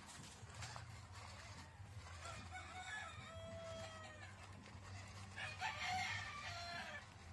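A rooster crowing, one long drawn-out call about two seconds in, followed by more chicken calls near the end, over a steady low hum.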